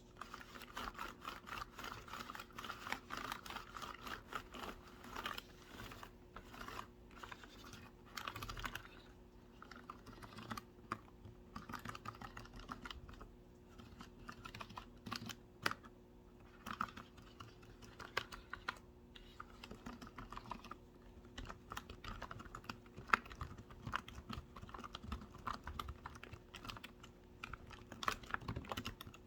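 Typing on a computer keyboard: quick runs of key clicks and taps, broken by short pauses every few seconds.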